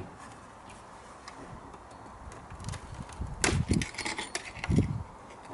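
Glazing bead being prised out of an aluminium window sash with a flat screwdriver: scattered light clicks, then a burst of clicks and scraping with a couple of dull knocks about three and a half seconds in as the bead comes free.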